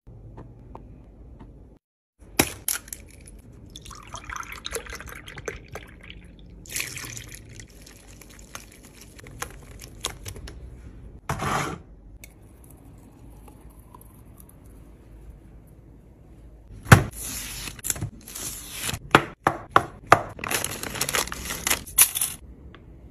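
Kitchen preparation sounds: flour and liquid going into a glass bowl and the batter being stirred. Near the end comes a run of loud crackles and clicks as a plastic packet of pizza cheese and wooden skewers are handled on a wooden board.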